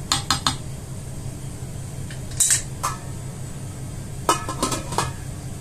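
Wooden spoon knocking against the aluminium pot of an electric rice cooker, then the cooker's metal lid clanking into place with a quick run of clinks about four seconds in.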